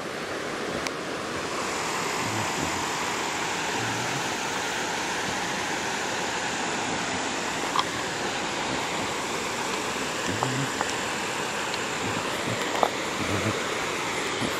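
River water rushing steadily over rocks and rapids below a dam spillway, a constant even hiss, with a couple of faint clicks about halfway through and near the end.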